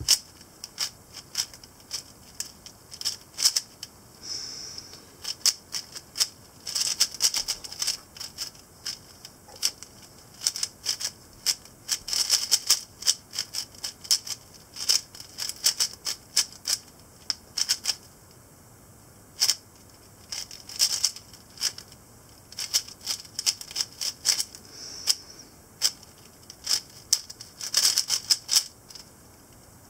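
Plastic 4x4 puzzle cube being turned quickly by hand during a solve: rapid clicking and clacking of the layers in quick runs, with brief pauses between them.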